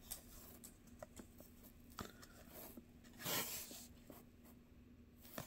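Faint handling of Topps Chrome baseball cards being flipped through by hand: a few light clicks as the cards knock together, and one brief swish of a card sliding off the stack about three seconds in.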